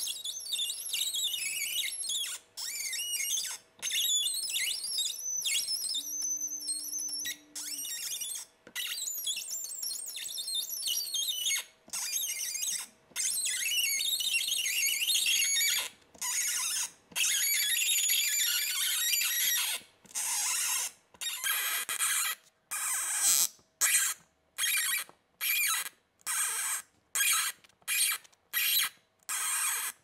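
M3 spiral tap turned by hand in a T-handle tap wrench, cutting threads into a motherboard tray hole with a high-pitched squeaking. It comes in strokes of a few seconds with brief pauses, then in the last third in short strokes about once a second.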